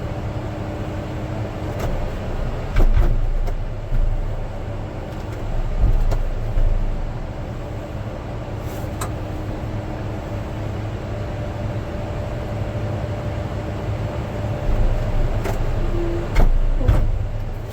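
Caterpillar D8T bulldozer's diesel engine idling steadily as it warms up from a cold start, with several sharp knocks and clunks scattered over it.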